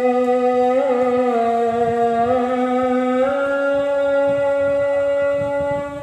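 Background music of long, held droning notes that shift pitch a few times, then stop near the end.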